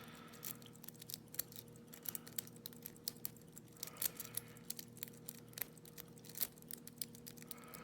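Rake pick being scrubbed through the pin stack of a Yale railroad switch lock under a tension wrench: many light, irregular metallic clicks and scrapes, several a second, over a faint steady hum.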